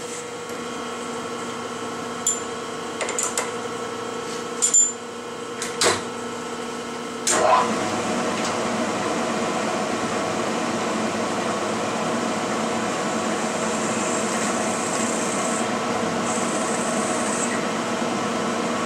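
Milling machine spindle running with a drill bit cutting a clearance hole in a metal plate. A few sharp clicks come in the first seven seconds. At about seven seconds the running sound rises in pitch and grows louder, then stays steady while the bit cuts, with a thin high hiss from about fourteen to seventeen seconds.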